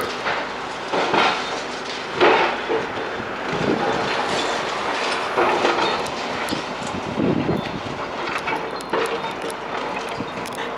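Demolition machinery at work: a steady machine hum under irregular crunching and knocking of breaking concrete and rubble.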